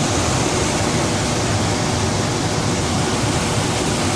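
Electric upright furnace's blower running, a steady rush of air being pushed through the heating elements.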